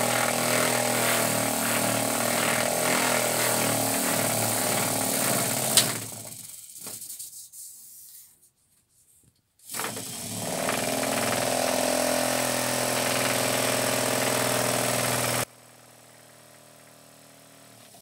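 Washing-machine motor running on 36 volts, spinning a three-blade propeller on a long PVC-pipe shaft. A sharp click about six seconds in, then it winds down to silence. About ten seconds in it starts again, speeds up and runs steadily until it cuts off abruptly near the end, leaving a faint hiss.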